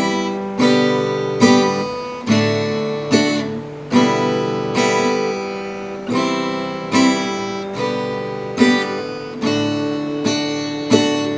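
Acoustic guitar strummed in a steady rhythm with no singing. Each stroke comes about once a second, and the chord rings on and fades before the next one.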